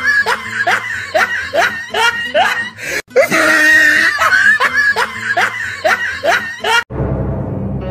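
A looped laughing sound effect: a voice laughing in quick rising bursts about two or three a second, the same few-second laugh played twice over. It cuts off near the end, where music with low sustained tones begins.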